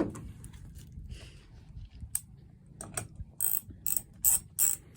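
Chainsaw bar and chain being adjusted by hand: a run of short ratcheting clicks, a few a second, starting about two seconds in.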